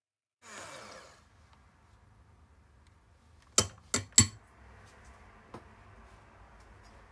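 Electric hand mixer whirring briefly, then its metal beaters knocked three times in quick succession against the glass bowl, with a softer tap about a second later.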